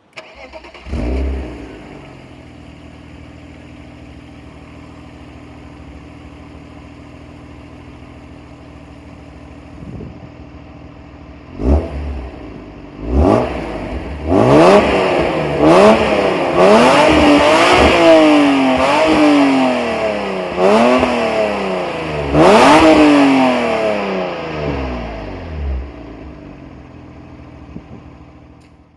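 BMW E36 M3's 3.0-litre straight-six on its stock exhaust: it flares about a second in, then settles to a steady idle. After a couple of short blips it is revved up and let fall several times in quick succession, then it drops back to idle.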